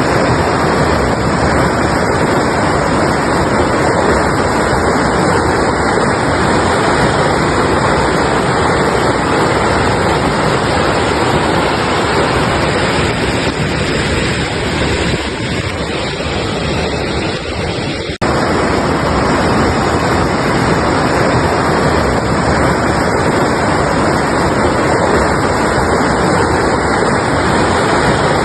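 Mountain river rushing steadily: a dense, even roar of water. A little past the middle it thins for a few seconds, then snaps back to full strength at an abrupt cut.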